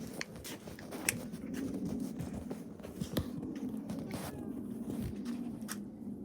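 Scattered small clicks and scrapes over a low steady hum: footsteps and the rustle of handling.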